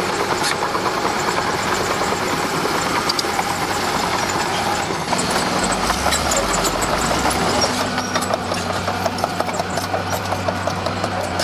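Komatsu D41P crawler bulldozer's diesel engine running steadily, with a deeper rumble about halfway through and a quick run of clicks near the end.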